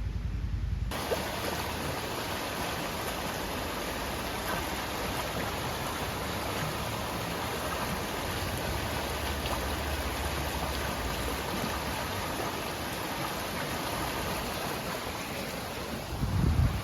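Steady rush of moving water, an even noise with no rhythm, with a brief low rumble near the end.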